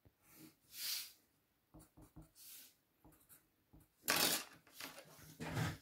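Faint rustles and scrapes of a clear plastic set square being slid over drawing paper and of a pencil drawing lines, with a few light ticks. There are short swishes a little before a second in, at about four seconds (the loudest) and near the end.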